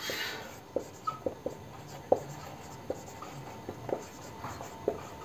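Marker pen writing on a whiteboard: a scatter of short taps and scrapes as the tip strokes out letters.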